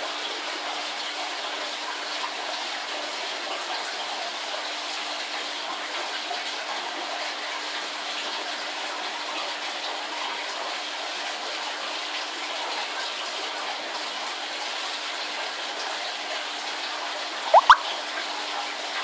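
Aquarium aeration and filter water: a steady rush of bubbling, running water with a faint low steady hum. Near the end, two brief rising chirps stand out above it.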